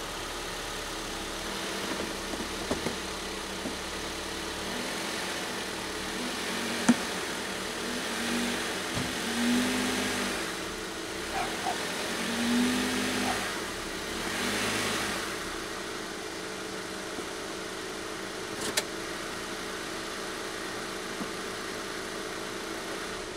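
A 2017 Honda Civic LX's four-cylinder engine running at idle, with a few brief rises in revs in the middle, then shut off at the very end.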